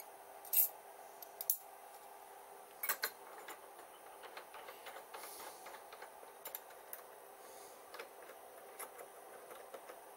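Light metal clicks and clinks from a drill bit and collet holder being handled and swapped, loudest in the first three seconds, then smaller ticks, over a faint steady hum.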